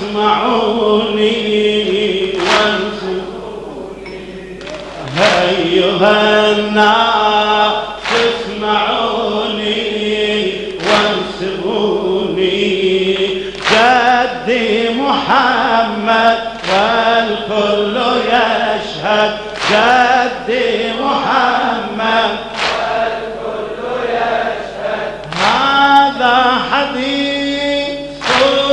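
Large crowd of men chanting a Shia mourning lament (latmiya) together, their drawn-out sung lines punctuated by a sharp slap of unison chest-beating (latm) about every three seconds.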